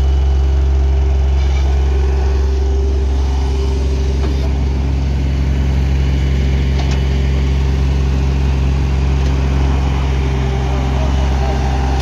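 Diesel engines of a backhoe loader and a small Cat CB22 tandem road roller running steadily, a deep, even engine drone.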